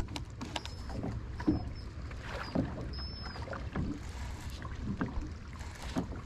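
Small fishing boat drifting on a choppy lake: water lapping against the hull over a steady low rumble, with a few light knocks.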